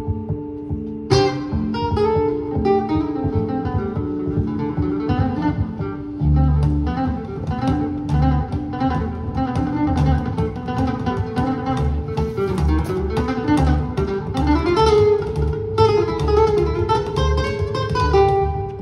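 Live acoustic trio: an acoustic guitar plays a fast, flamenco-flavoured plucked line over plucked double bass notes, with saxophone adding held notes.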